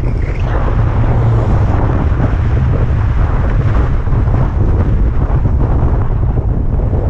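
Steady heavy wind buffeting on the microphone of a rider moving along on an electric moped, mostly a deep rumble.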